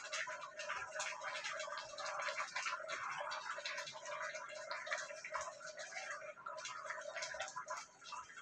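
Stew chicken gravy bubbling and sizzling in an open pan, a dense, continuous crackle of small pops.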